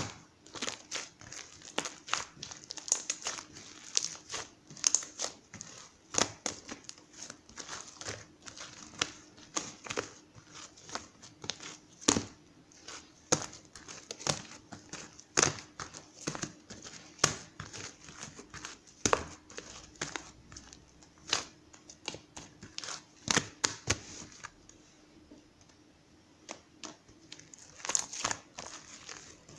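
Irregular crinkling and clicking handling noises, a few each second, over a faint steady hum, with a quieter lull of a few seconds near the end.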